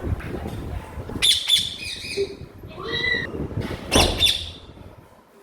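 Pet parrot giving harsh, rapid squawking calls in two bursts, about a second in and about four seconds in, with a few shorter pitched calls in between.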